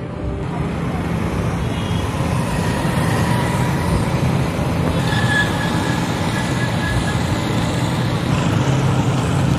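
Road traffic at a busy roundabout: motorcycle and car engines running and passing in a steady mix.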